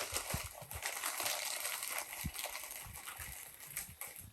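Wrapping crinkling and rustling as a film camera is unwrapped by hand, with a few soft knocks of handling; the rustling thins out near the end.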